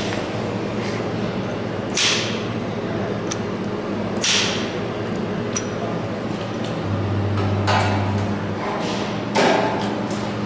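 DA-2000i drawn-arc stud welder firing M19 studs through ceramic ferrules onto steel decking: three short, sharp bursts, each under half a second, over a steady low hum.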